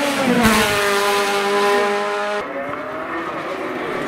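Hill-climb sports-prototype race car engine at high revs, falling in pitch as it slows into a tight bend, then holding a steady high note through the corner. The note drops suddenly to a lower, quieter one about two and a half seconds in.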